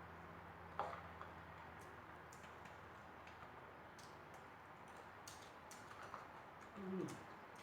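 Quiet eating sounds: sparse soft mouth clicks and smacks while chewing, over a steady low hum. Near the end, a short low hum of the voice, falling in pitch.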